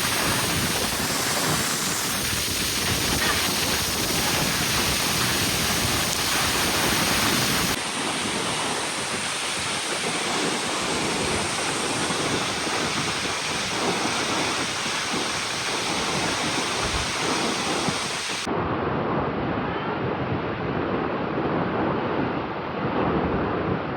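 Waterfall: a loud, steady rush of falling water, its character changing abruptly about eight seconds in and again past the two-thirds mark.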